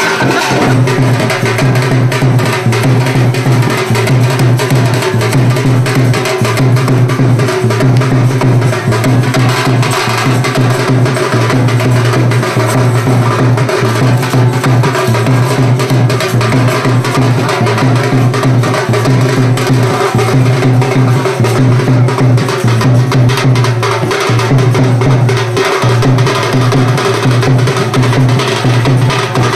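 Loud dance music driven by a fast, clacking drum beat, as from a band baja's drums, over a steady low drone.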